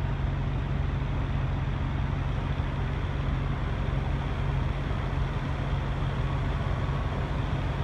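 Steady low drone of idling semi-truck diesel engines, unchanging, over a constant hiss of wider noise.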